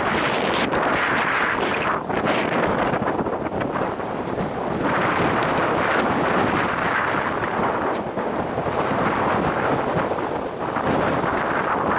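Strong gusty wind buffeting the microphone: a loud, continuous rush that swells and eases every few seconds.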